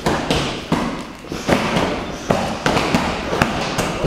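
Kicks and punches landing on a kick shield and pads, a string of sharp smacks at about two or three a second, uneven in spacing and loudness.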